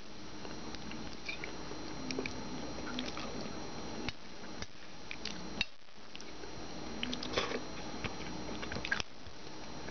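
A person quietly chewing food, with scattered small clicks of a fork on a plate, over a faint steady hum.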